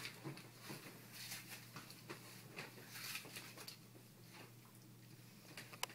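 Faint rustling and scuffling of a bedcover as a puppy and a person's hands wrestle on a bed, with a single sharp click near the end.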